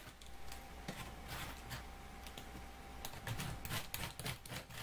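A hand-held shredder blade scraping across a wedge of raw white cabbage, each stroke a crisp, crunchy rasp. The strokes are scattered at first, then come quickly from about three seconds in.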